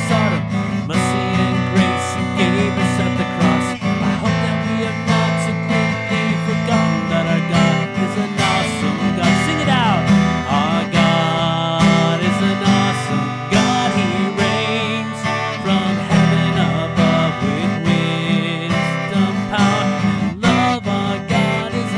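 Acoustic guitar strummed steadily while a man sings a worship song along with it.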